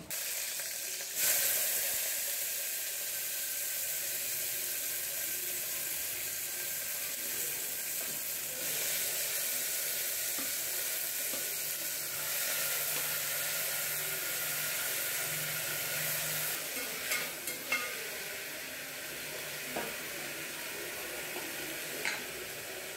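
Chopped onions, tomatoes and curry leaves sizzling in hot oil in an aluminium pressure cooker. A steady hiss starts about a second in as they are tipped into the pot, and a spatula clinks against the pot a few times near the end.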